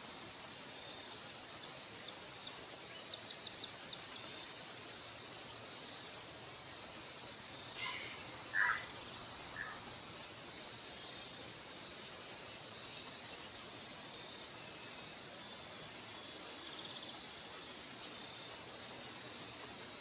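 Outdoor ambience: a high-pitched insect-like chirp repeating roughly once a second over a steady hiss. About halfway through there is a short cluster of louder sounds of unclear source.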